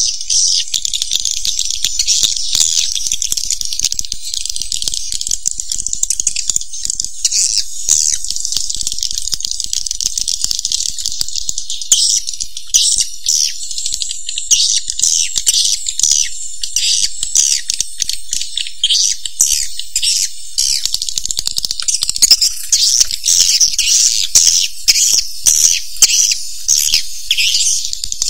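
Recorded swiftlet calls: a dense, unbroken mass of high, rapid chirping and rattling twitters, with louder, more separate bursts coming thick in the second half. This is a swiftlet lure call, the kind played from swiftlet houses to draw the birds in to roost and nest.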